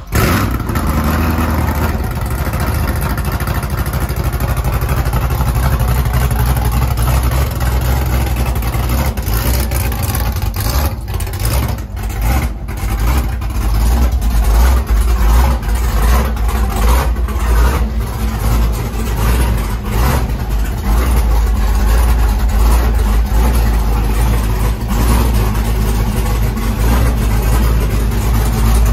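Freshly built 2006 Cadillac CTS-V's LS2 6.0-litre V8, with aftermarket cam, heads, intake and exhaust, catching suddenly right at the start on its first fire-up after the build. It then keeps running at idle, the level wavering.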